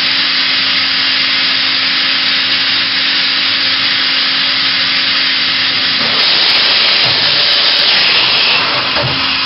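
Makino A81 horizontal machining center running with a steady hum and hiss. About six seconds in the hum cuts out and a louder rushing hiss takes over as the automatic tool changer swaps in a long tool, with a low thump near the end.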